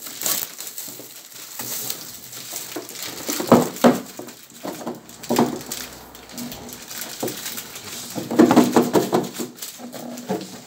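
Plastic sweet and gift packaging crinkling and rustling as it is handled and torn open, in irregular spurts, loudest a few seconds in and again near the end.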